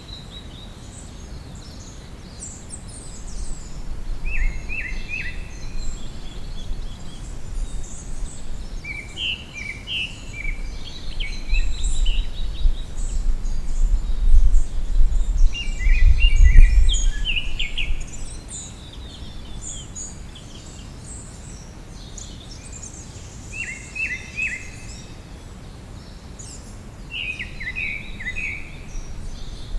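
Small songbirds chirping and singing in repeated short, high phrases throughout. Under them, a low rumble swells up in the first half, is loudest a little past the middle and dies away soon after.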